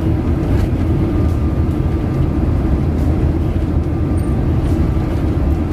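Steady low road and engine rumble of a moving vehicle, heard from inside as it cruises along the highway.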